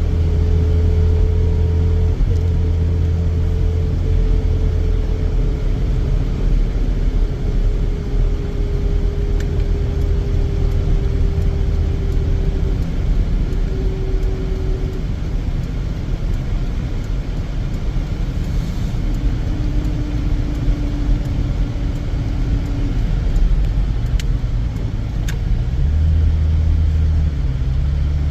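Car driving on the road: a continuous low rumble of engine and tyres, with a faint hum slowly falling in pitch through the first half.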